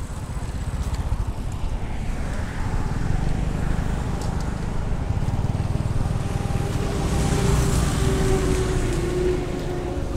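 A motorbike engine passing on the road over a steady low rumble. It grows louder through the middle and its pitch drops slightly near the end as it goes by.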